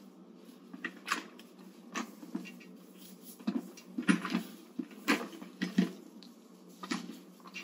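Irregular soft knocks and rustles of washcloths, towels and bedding being handled while a leg is washed and dried in bed, the loudest about four and five seconds in.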